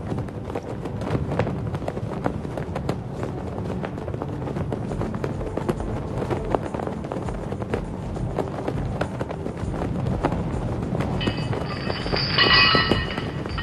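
Action-style background music with a dense run of sharp percussive hits; near the end a cluster of high held tones sounds together, the loudest part.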